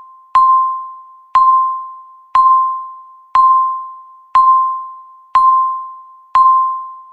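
Countdown timer's electronic beep sounding once a second, seven times: each beep is a single mid-pitched tone that starts sharply and fades away before the next, ticking off the remaining seconds.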